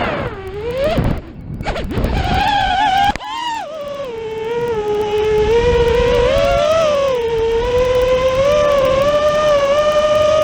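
FPV quadcopter's brushless motors whining as the throttle changes: the pitch falls sharply at first, dips and rises with a brief drop-out, a sharp click about three seconds in, then a steadier whine that wavers up and down.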